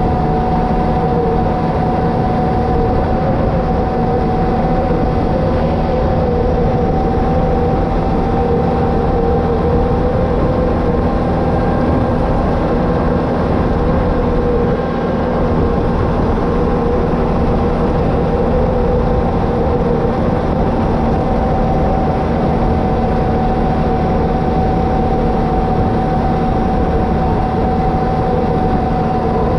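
Can-Am Renegade 1000 ATV's V-twin engine running at a steady, even speed while riding, a constant loud drone with no revving.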